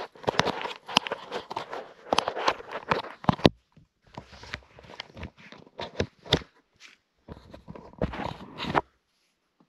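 Inflatable boat's rubber hull pushing through dense water grass: a run of irregular rustles, scrapes and crackles, pausing briefly after about three and a half seconds and stopping near the end.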